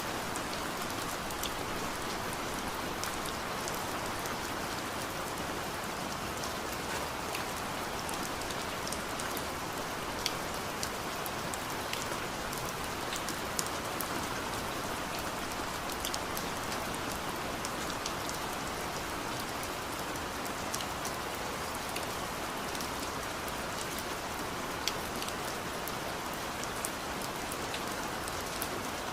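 Steady rain falling, an even hiss with many distinct drops ticking on a hard surface.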